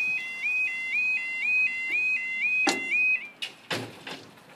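Level crossing warning alarm, a two-tone yodel that repeats about twice a second and cuts off about three seconds in. Loud clunks about two and three seconds in, as the swinging crossing gates come to rest.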